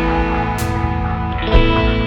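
Background music: an instrumental stretch of a song with guitar chords and drum hits, between sung lines.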